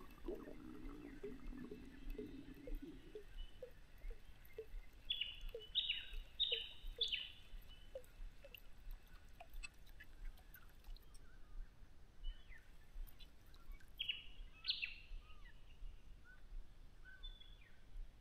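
Birds calling: a quick run of four short, sharp falling notes about five to seven seconds in and two more near fifteen seconds, with fainter chirps between.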